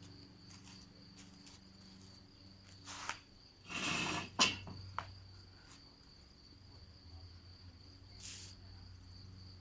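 Crickets trilling steadily and high-pitched, with a few short rustling and knocking handling noises around three to four and a half seconds in and again near the end. A faint low ring from a struck steel tongue drum note dies away over the first few seconds.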